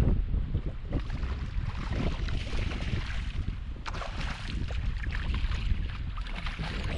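Wind buffeting the microphone in a steady low rumble, with a light knock about four seconds in.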